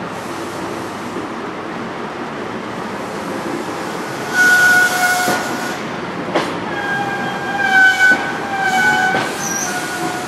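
A Great Western Railway HST's Mark 3 coaches rolling slowly past on departure, the wheels squealing against the rails in high, ringing, wavering tones. The squeal rises sharply about four and a half seconds in, and again from about seven to nine seconds. A couple of sharp clacks come from the wheels crossing rail joints.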